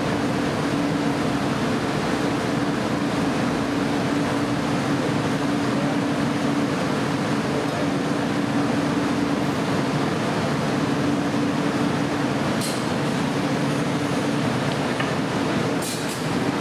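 Steady roar of glass-studio furnace and glory-hole burners and blowers, with a constant low hum under it. Two light clicks, one about two-thirds of the way in and one near the end.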